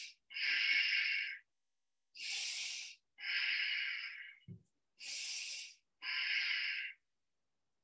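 A woman's slow, deep breathing: three full breaths in and out, evenly paced, with short silences between.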